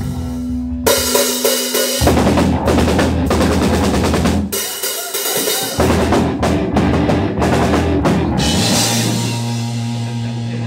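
A live band playing: drum kit with bass drum and snare, electric bass and electric guitar in an improvised funk-rock jam. The music changes abruptly several times, and a held low bass note sounds near the end.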